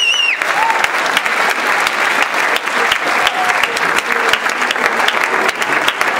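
Theatre audience applauding steadily after a performance, a dense clatter of many hands clapping. A shrill whistle from the crowd cuts off just after the start.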